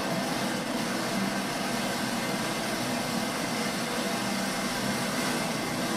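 Dense, continuous crackle of a firecracker barrage, heard as a steady wash of noise from a video played over a classroom's speakers.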